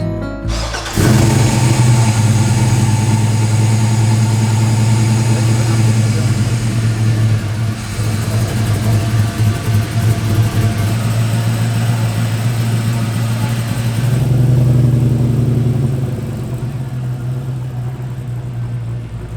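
Engine of a restored 1964 Chevrolet pickup truck starting up about a second in and then running steadily, briefly louder for a moment near the end before settling back.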